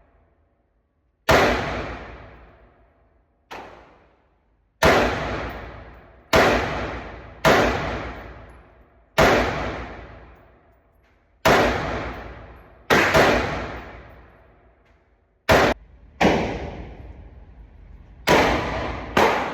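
Pistol firing about a dozen single shots at an irregular pace, one to two seconds apart. Each shot is a sharp crack followed by a long ringing decay.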